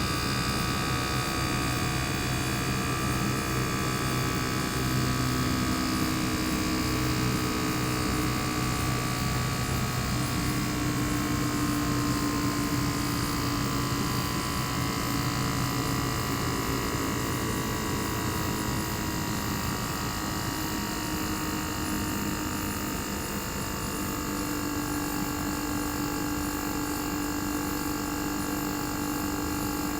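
Inverter-driven single-rotary compressor of a Panasonic CU-227CF air-conditioner outdoor unit running, heard bare with its sound insulation opened: a steady hum with a whine over it, whose pitch drifts slowly lower partway through.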